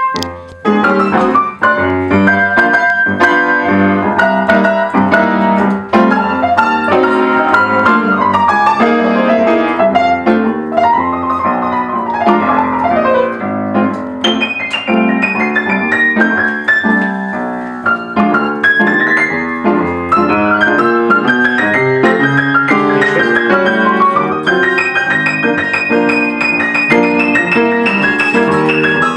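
Piano played four hands in an improvisation: dense chords and quick runs of notes, with fast rising runs in the second half.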